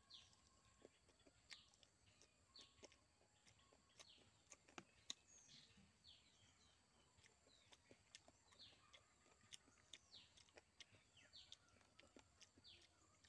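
Faint small birds chirping, short falling chirps coming every second or so, with scattered soft clicks of chewing and lip-smacking from eating by hand.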